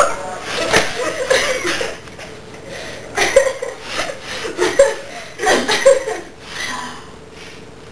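A person chuckling and laughing in short bursts, with no words.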